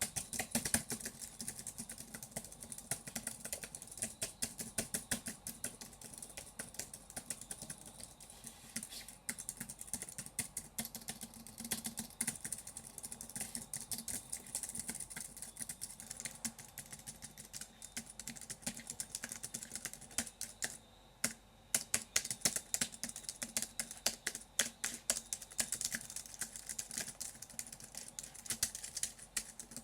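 Fast typing on a computer keyboard: a dense, irregular run of key clicks, with a short break about 21 seconds in.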